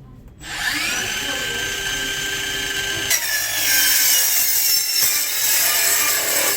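Makita DCS551 18V cordless metal cutter with a 150 mm blade spinning up to a steady high whine. About three seconds in the blade cuts into metal and the sound turns louder and harsher.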